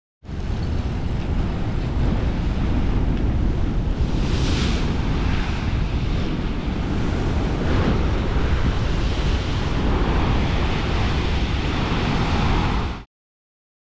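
Heavy ocean surf breaking, with wind rumbling on the microphone and a brighter hissing surge about four seconds in. The sound cuts off suddenly near the end.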